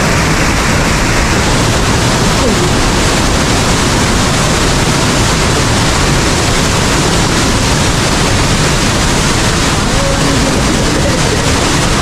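Waterfall rushing, loud and steady.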